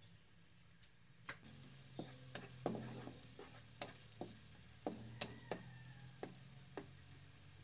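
Spatula stirring chopped onion and garlic in a nonstick pan, with about a dozen sharp, irregular clicks as it knocks and scrapes against the pan, over a faint sizzle of the oil. A steady low hum runs underneath.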